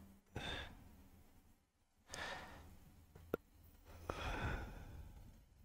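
A person breathing close to the microphone: three soft breaths or sighs about two seconds apart, the last the longest, with a single sharp click between the second and third.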